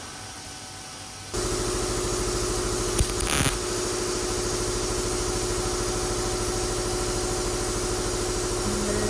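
MIG welder arc, starting suddenly about a second in and then crackling steadily, with a brief louder burst about three seconds in, as weld is laid into holes in sheet-metal van body panels.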